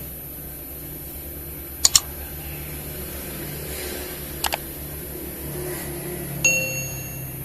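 Sharp clicks in quick pairs, three pairs roughly two seconds apart. Near the end comes a brief ringing tone, heard over a low steady hum.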